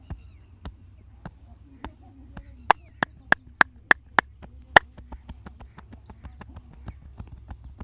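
Percussive massage strokes: the masseur's hands slapping and clapping against the body. A few spaced strikes come first, then six loud ones in a quick even run, then a fast patter of lighter strikes, several a second.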